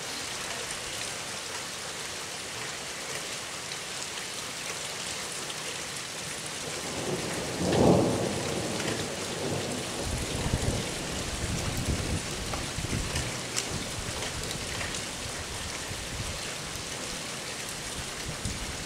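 Winter squall-line thunderstorm: steady rain hissing, with a loud thunderclap about eight seconds in that rolls on as low rumbling for a few seconds more.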